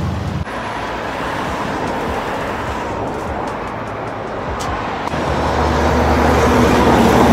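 Road traffic: steady tyre and engine noise of passing vehicles. From about five seconds in, a vehicle's low engine rumble builds and grows louder as it approaches.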